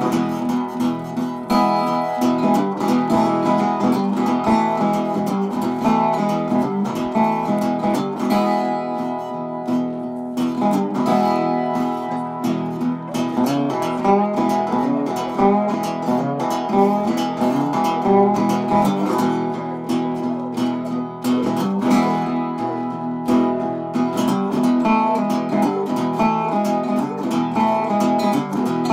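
Background music: strummed and plucked acoustic guitar with a steady rhythm.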